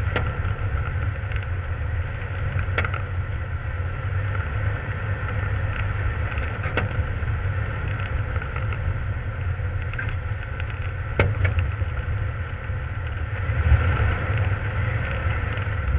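A Jeep's engine running as it drives slowly over a snowy trail, heard from a camera mounted on the vehicle: a steady low rumble with a few sharp clicks scattered through it.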